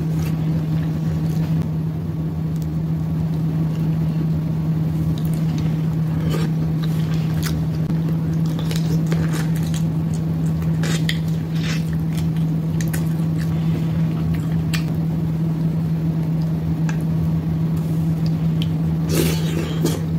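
Close-up eating of a sauce-covered seafood boil: wet smacking, sucking and squishing of crab and shrimp meat, as scattered short clicks and crackles. A loud steady low hum runs underneath throughout.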